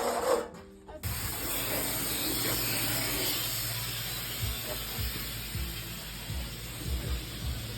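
Steady hissing noise over a low hum, starting abruptly about a second in, with a few dull low knocks.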